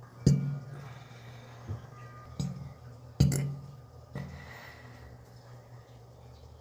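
A cat making abrupt throat spasms of the kind heard when it coughs or gags: four sharp jolts at uneven intervals over about four seconds, each dying away quickly, over a steady low hum.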